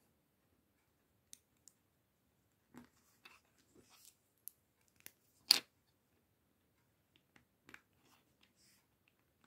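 Small plastic LEGO pieces clicking and tapping as they are handled and pressed onto studs: a scatter of faint clicks, with one sharper click about five and a half seconds in.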